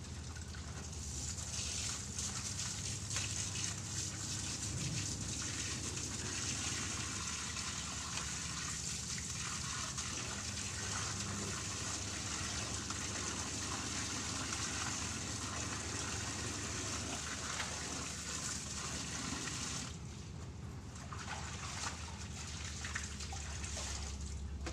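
Water running steadily from a wall tap and splashing as something is hand-washed beneath it. The flow drops away about twenty seconds in, then picks up again.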